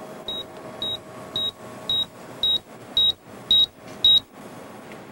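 Computer terminal beeping again and again, a short high beep about twice a second, each one louder than the last; the terminal is set to beep at every login to the lab's computer.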